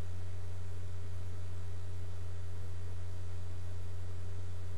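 Steady low electrical hum with hiss from a poor-quality microphone, with no other sound over it.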